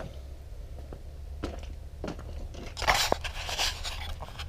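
Footsteps crunching on gravel and rustling, knocking handling noise as the camera is picked up and carried, loudest about three seconds in, over a steady low rumble.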